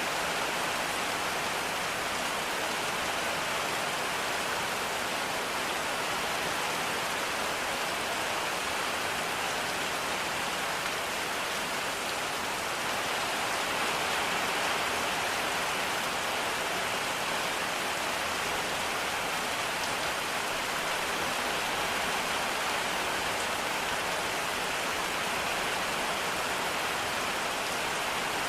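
Steady rainfall, an even hiss of rain pattering on surfaces with no breaks or changes in strength.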